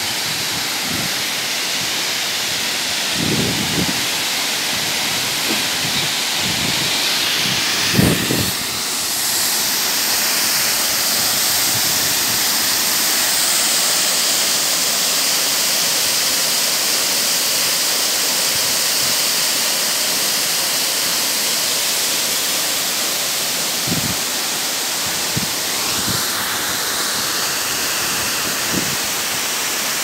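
Waterfall rushing steadily into a pool: loud, even noise of falling water. A few brief low thumps break through, the strongest about eight seconds in.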